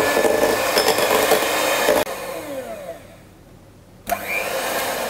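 Electric hand mixer beating heavy whipping cream in a glass bowl into stiff peaks. The motor runs steadily, cuts off about two seconds in and winds down with a falling whine. It starts again briefly with a rising whine near the end and winds down once more.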